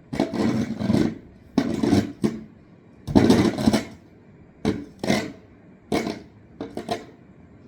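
Rock salt being spread on the road: about seven short swishing, scraping sounds, irregularly spaced, with the last cluster near the end.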